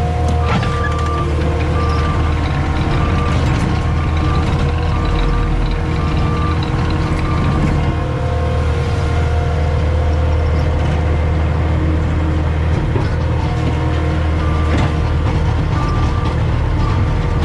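CAT 259D skid steer's diesel engine running steadily while its backup alarm beeps in an even on-off rhythm, roughly once a second. The beeping stops about halfway through and starts again near the end as the machine reverses.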